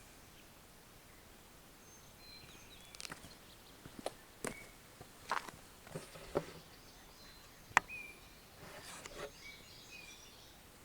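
Faint bird chirps in the background, with a run of short clicks and rustles through the middle. The sharpest click comes about three-quarters of the way through.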